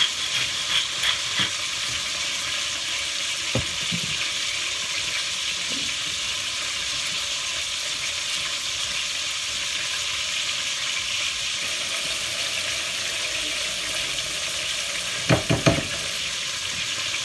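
Steady sizzle of veal browning in oil in a stainless-steel pot, with a few light clinks of a spoon stirring sauce in a ceramic bowl; a quick run of clinks a little before the end is the loudest.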